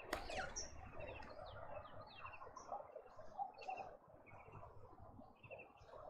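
Several wild birds chirping and calling in a garden: short high notes and quick repeated note groups from different birds, over a faint background of more distant birdsong. A sharp high note sweeping downward at the very start is the loudest sound.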